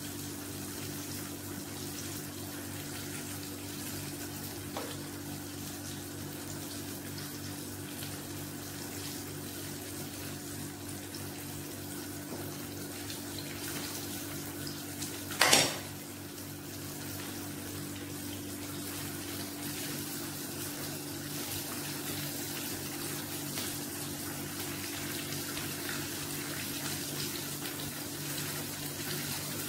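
Floured chicken pieces deep-frying in a pan of hot oil, giving a steady sizzle over a steady low hum. A brief loud burst of noise stands out about halfway through.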